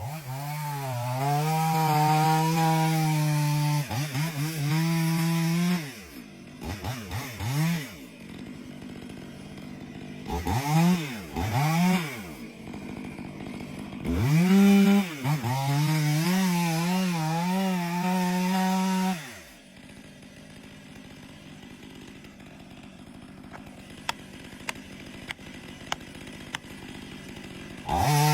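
Two-stroke chainsaw running at full throttle in a cut, its pitch wavering as the chain bites, with several revs up and down in between. About twenty seconds in it drops away to a quieter stretch with a few light clicks, and the saw comes back on at the very end.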